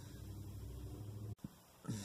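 Low steady hum that cuts off abruptly a little over a second in, followed by a single short computer mouse click as the System settings page is opened.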